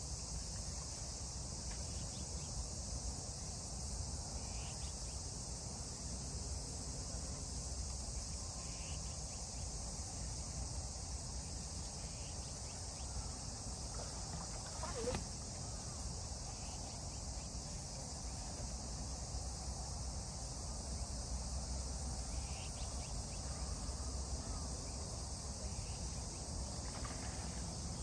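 A steady, high-pitched chorus of insects over a low, steady rumble, with one short sharp sound about halfway through.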